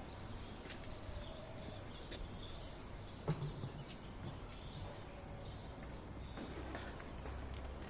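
Steady background noise with faint, scattered short high chirps, and a brief low thump about three seconds in.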